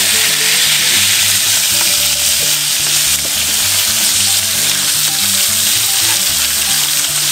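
Whole mojarras frying in hot oil in a frying pan: a steady, loud sizzle.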